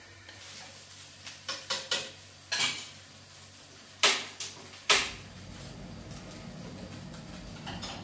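A spatula scraping and knocking in a frying pan, then two sharp clicks from a gas stove's ignition knob about four and five seconds in. After the clicks the burner lights, with a low steady rush of burning biogas.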